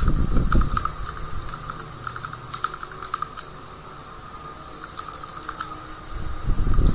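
Computer keyboard being typed on in short runs of light clicks, with pauses between them. A low rumbling noise is loudest near the start and again near the end.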